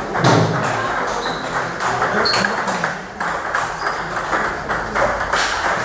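Table tennis balls clicking off tables and bats, many sharp pocks at an uneven pace from more than one table.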